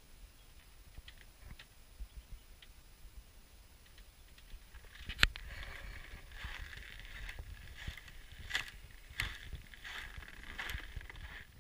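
Footsteps crunching in snow on a wooden deck, with a sharp knock about five seconds in.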